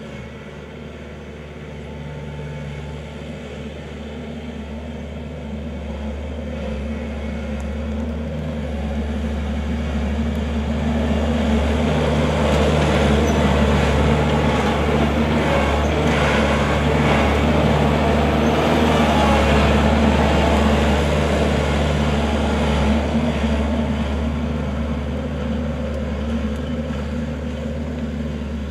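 Kubota L4400 tractor's diesel engine running steadily. It grows louder through the middle and eases off near the end.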